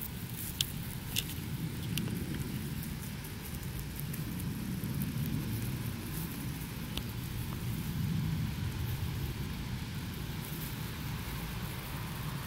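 Rabbits chewing and tearing long grass close to the microphone: crisp crunches and snaps of the blades, heard as scattered clicks, over a steady low rumble.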